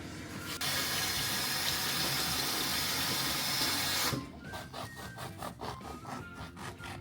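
Kitchen tap running water for about three and a half seconds, then shut off suddenly. A rhythmic scraping follows, about four strokes a second.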